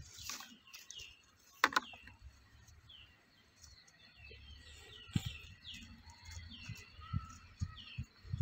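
Small birds chirping: short, falling, high-pitched chirps repeated throughout. There is one sharp, loud sound a little under two seconds in, and low thuds in the second half.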